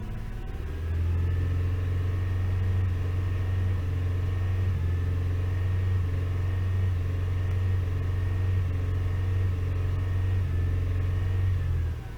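Toyota V6 engine running with a steady low drone that steps up about a second in, holds, and drops back just before the end. The engine has a misfire that makes it shake.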